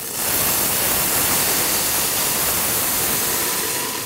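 Puréed tomato salsa poured into hot olive oil in a saucepan, frying with a loud, steady sizzle that eases off near the end.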